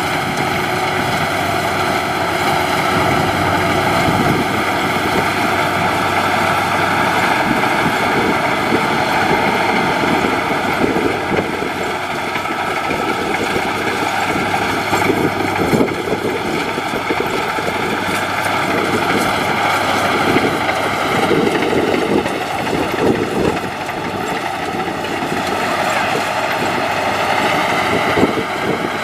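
Maxxi HD NDR 85 rice combine harvester running steadily under load as it cuts and threshes rice: an even engine drone with a constant machine whine over it.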